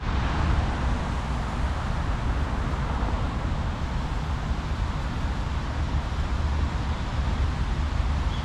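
Steady outdoor background noise: a low, uneven rumble with a hiss above it, and no distinct events.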